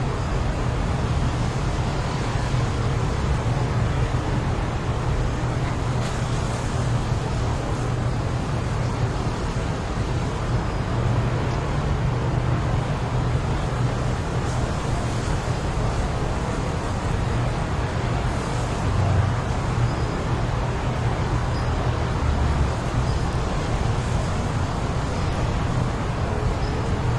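Strong wind blowing steadily with a deep rumble, as in a tornado or heavy gusts, with a few faint short high chirps in the second half.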